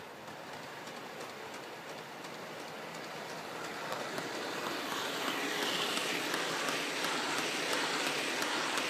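Model diesel locomotive, a Heljan Class 33, hauling Dogfish ballast wagons along the track: a steady rolling rattle of wheels on rail with light clicks, getting louder about halfway through as it passes close by.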